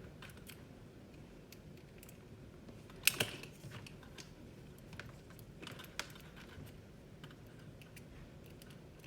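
Scattered light clicks and taps of a multimeter, its test leads and a capacitor being handled, with one sharper click about three seconds in and another near six seconds.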